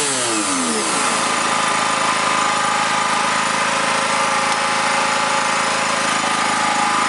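Electric random orbital sander with a mesh abrasive disc running. For the first second the motor's pitch wavers up and down as it is worked across car paint, then it settles into a steady whine, running free off the surface.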